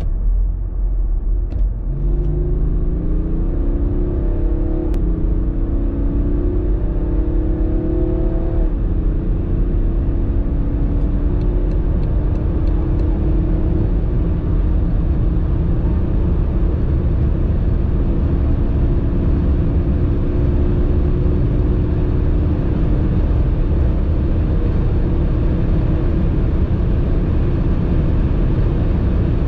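BMW 530d xDrive Touring's 3.0-litre straight-six diesel, with M Performance Power Kit, heard from inside the cabin under full acceleration, its note climbing for several seconds and then dropping at an upshift of the 8-speed ZF automatic. After that it pulls on in the higher gears with the pitch rising only slowly, under heavy, steady wind and tyre noise at high speed.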